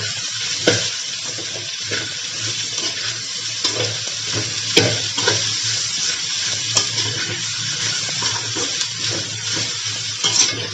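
Sliced okra and onions sizzling in oil in a metal kadai, with a steady hiss. A metal spatula scrapes and clicks against the pan now and then as the okra is stirred.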